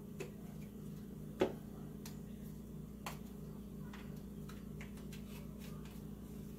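Small clicks and taps of a plastic spice-bottle cap being worked by hand, with one sharper click about a second and a half in and several lighter ticks later on. The bottle has not yet been opened.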